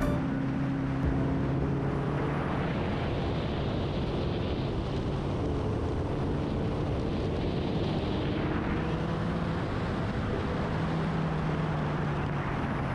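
Kawasaki ZX-10R's inline-four engine running while riding, under heavy wind rush on the microphone; the engine note shifts in pitch as the speed changes.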